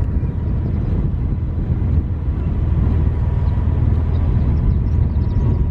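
A vehicle driving along, its steady low road and engine rumble running on without a break.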